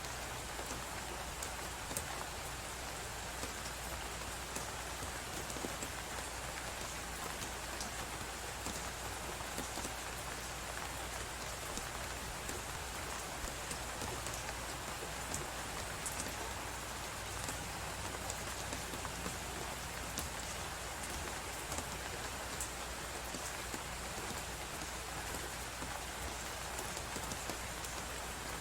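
Crackling fireplace: many small sharp crackles over a steady hiss of storm wind.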